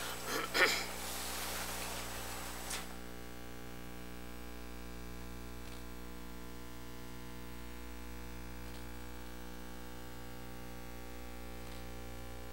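Steady electrical hum on the room's audio feed, with a brief rustle and a couple of soft knocks in the first three seconds, then faint ticks about every three seconds.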